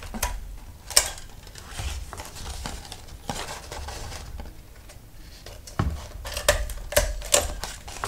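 Handheld metal stapler clicking shut as staples are driven through overlapped paper plate flaps, with the stiff paper plate handled and turned between staples. The sharpest click comes about a second in, and several more come close together near the end.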